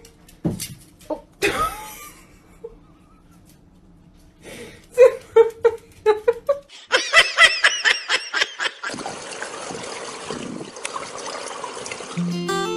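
A few knocks and clatters, then a person laughing hard in bursts that rise into high-pitched laughter, then a steady hiss of running water.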